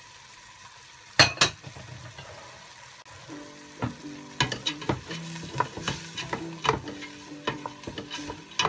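Wooden spoon stirring and scraping chopped carrot, onion and chicken as they sauté in a stainless steel pot, with a light sizzle. Sharp knocks of the spoon on the pot: two loud ones just after a second in, then many quicker ones in the second half. Soft background music with steady tones comes in about three seconds in.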